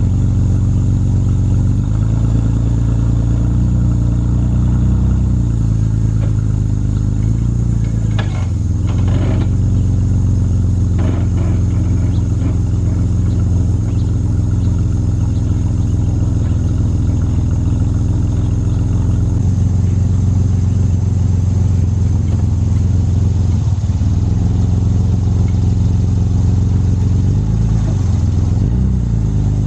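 Ford Explorer's engine idling steadily, with a few faint knocks about eight to eleven seconds in.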